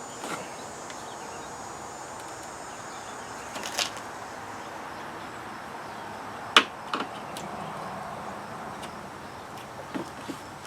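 Scattered sharp clicks and knocks from handling plastic car trim parts, the loudest a little past halfway, over a steady outdoor hiss with a faint insect-like trill near the start.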